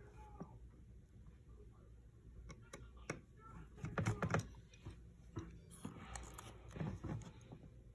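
Small clicks, taps and handling knocks from hand tools and iPhone parts being worked on during a screen repair. The loudest cluster comes about halfway through, with another near the end.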